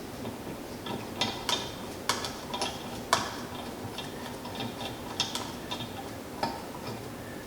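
Light, irregular metal clicks and taps as a bolt is started by hand into its hole on a tractor part, the loudest about three seconds in.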